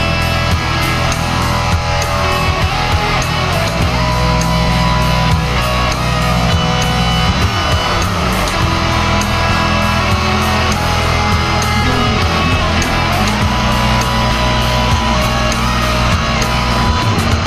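Heavy rock music with electric guitar and a steady drum beat.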